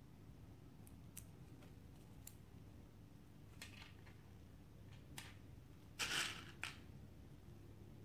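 Faint clicks and rustles of small plastic beads and nylon line being handled while threading, with a louder short scrape about six seconds in followed by a single click.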